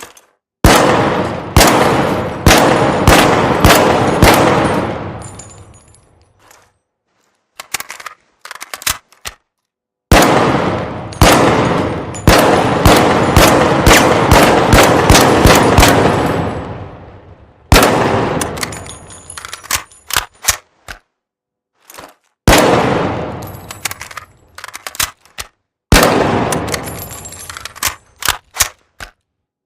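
5.56 rifle fired in four strings of shots in quick succession, about three a second, each shot a sharp crack with a long echoing tail. Between the strings come short sharp clicks and high metallic clinks.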